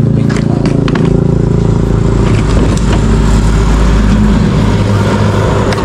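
Motor vehicle engine, likely a motorcycle, running steadily in street traffic, a low hum throughout. A few light clicks sound in the first second.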